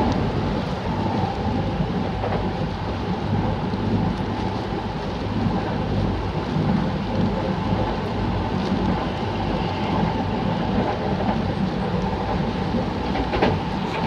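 Kintetsu electric train running, heard from inside the carriage: a steady low rumble with a faint even hum, under heavy rain, and a few clicks near the end.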